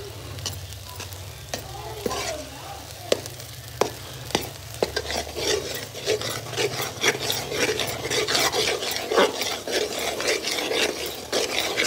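Metal spoon stirring and scraping a chana dal paste as it fries and sizzles in ghee in a metal pot, with sharp knocks of the spoon against the pot. The strokes are sparse at first and become a busy, continuous scraping about halfway through. This is the roasting stage of chana dal halwa.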